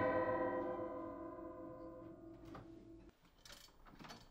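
A piano chord, struck just before, rings on and fades away and is cut off about three seconds in. A few faint knocks follow near the end.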